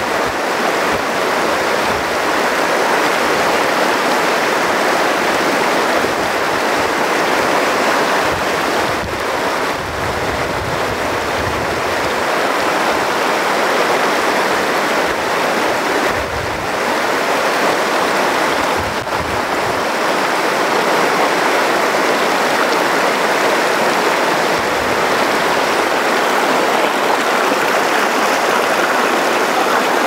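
The Middle Fork San Joaquin River rushing and splashing over boulders in small cascades: a steady, loud rush of white water.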